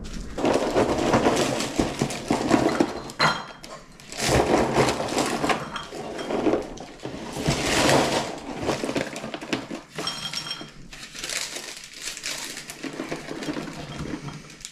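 Irregular rustling and clattering of objects being handled, in several bursts with short pauses, with a few light clinks.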